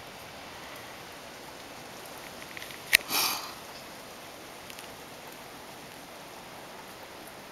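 Steady hiss of rain falling. About three seconds in comes one sharp click, followed by a brief rush of noise lasting about half a second.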